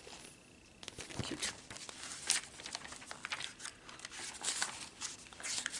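Pages of a glossy magazine being handled and turned: a run of short paper rustles and crinkles.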